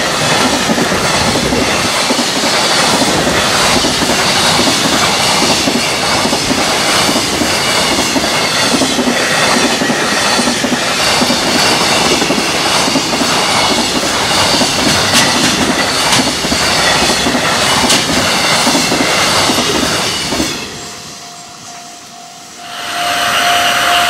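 Freight train of hopper and tank wagons passing at high speed, its wheels clattering rhythmically over the rail joints. About twenty seconds in the last wagon goes by and the noise falls away. Near the end it rises again with a steady high tone as the next freight train approaches.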